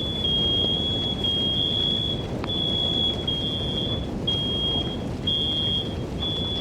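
Smoke alarm sounding: a high, piercing tone held for about a second at a time with short breaks between, repeating. A single sharp click about two and a half seconds in.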